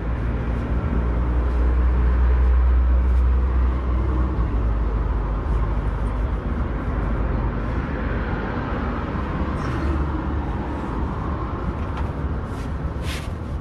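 Steady low rumble of an idling vehicle engine, a little louder a few seconds in, with a few sharp clicks near the end.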